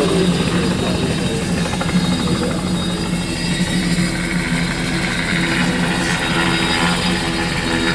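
Tour helicopter running close by on or near the landing pad. Its engine gives a steady hum, with a fast, even beat from the rotor blades.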